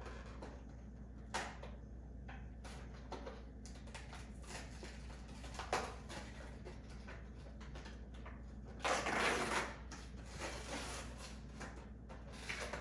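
Toy packaging being handled and opened: scattered light clicks and rustles, with a louder burst of rustling about nine seconds in.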